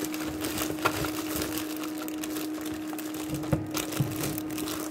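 Clear plastic wrapping crinkling and rustling as it is pulled off a projector by hand, with a few sharper crackles about a second in and near the end. A steady hum runs underneath.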